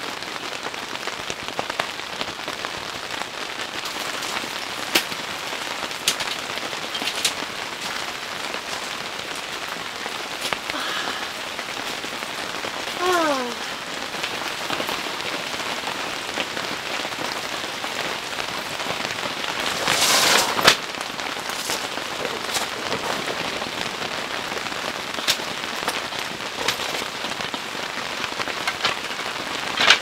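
Steady rain falling on the tent fabric, heard from inside the tent, with scattered heavier drops ticking. A short descending squeak comes a little before the middle, and a brief louder swish about two-thirds of the way through.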